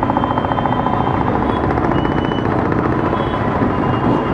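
A motor running steadily, with a rapid, even pulse.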